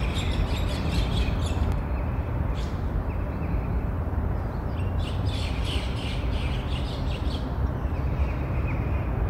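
Small birds chirping in short clusters over a steady low outdoor rumble.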